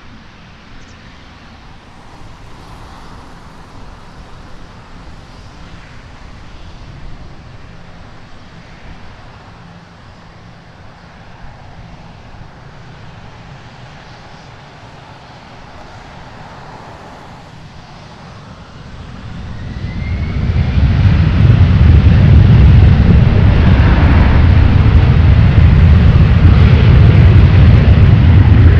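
Twin rear-mounted Rolls-Royce BR710 turbofans of a Bombardier Global 5000 at low power as the jet taxis and lines up. About two-thirds of the way through they spool up to takeoff thrust: a rising whine and a quick climb to a loud, steady jet noise as the takeoff run begins.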